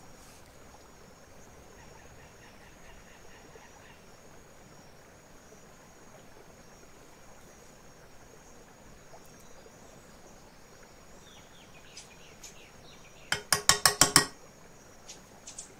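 Faint room noise, then near the end a quick run of about eight sharp knocks in under a second, like kitchen utensils striking.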